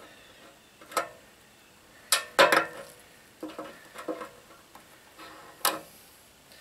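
Irregular metallic clicks and clinks, about eight in all, as hands and a tool work at the fuel-line fitting under an old gas generator's fuel tank.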